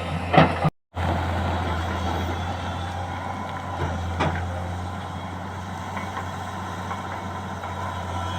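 LiuGong 922 excavator's diesel engine running steadily with a low hum, with a few short knocks from the machine working. The sound cuts out completely for a moment just under a second in.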